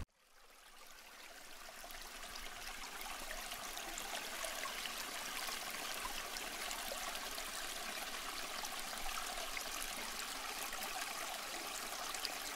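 A limestone stream's water running and trickling in a steady rush, fading in from near silence over the first two seconds.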